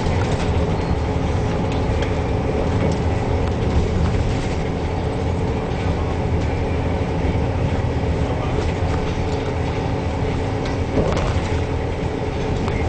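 Neoplan Centroliner bus cruising at motorway speed, heard from inside the cabin: a steady engine drone and road rumble with faint scattered rattles.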